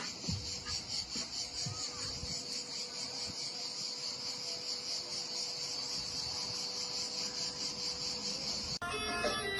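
Insects chirping in a steady, rhythmically pulsing high-pitched chorus. Near the end it cuts off abruptly and music starts.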